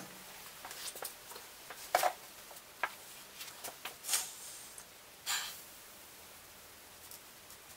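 Cardboard template being laid down and slid into place on a sheet of metal: scattered light taps and clicks, then two short scraping rustles about four and five seconds in.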